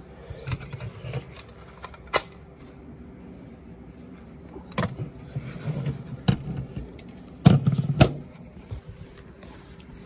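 Handling noise: rustling with scattered sharp plastic clicks and knocks, about five in all, the loudest a pair close together near the end, as the plastic smoke detector and its base are handled.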